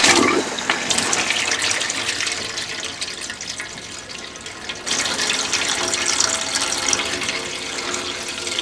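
Water forced out of a motorhome's kitchen mixer tap by compressed air, gushing through a cloth held over the spout into a stainless steel sink as the hot-water pipe is drained down. The flow eases a few seconds in, then picks up again about halfway through.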